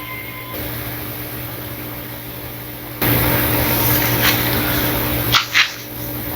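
Steady hiss with a low electrical hum from a heavily boosted recording. It jumps louder about three seconds in, and two short sharp sounds come near the end.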